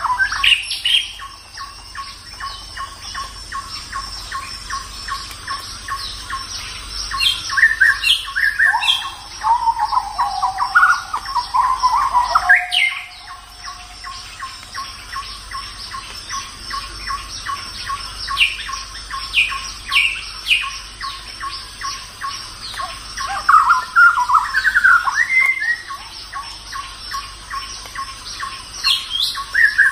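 Birds chirping and whistling over a fast, even pulsing call of about four pulses a second, like a recorded nature soundscape. Louder bursts of song come twice, around a third of the way in and again later.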